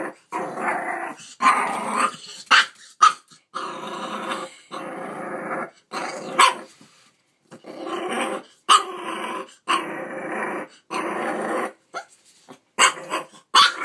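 Puppy growling over and over in rough spells of about a second, broken by short sharp barks and a quick run of barks near the end: a frightened puppy growling and barking at her own reflection in a mirror.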